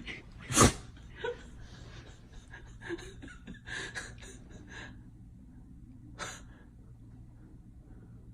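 Labrador retriever sneezing once, sharp and loud, about half a second in, followed by a few softer breathy snuffs.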